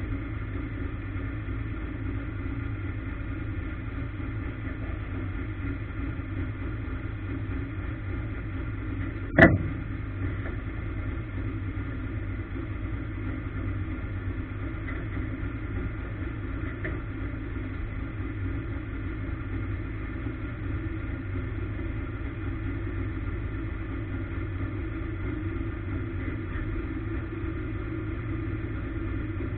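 Ministock race car's engine heard from inside the car, running at a steady speed with no revving. A single sharp knock about nine and a half seconds in.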